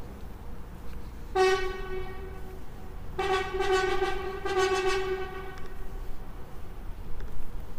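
A horn sounding one steady pitch twice: a short blast, then a longer one about two seconds later that tails off.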